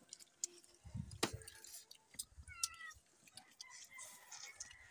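A cat meows once, briefly, about two and a half seconds in, among faint sharp clicks and cracks of boiled crab shells being broken apart by hand.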